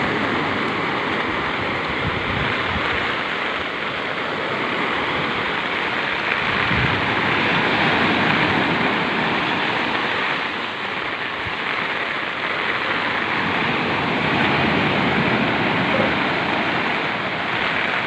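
Heavy storm surf breaking on the shore: a steady rushing noise of waves, with storm wind.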